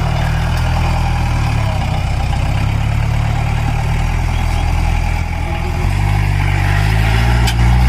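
Off-road jeep's diesel engine running at low revs, then revving up steadily over the last two seconds.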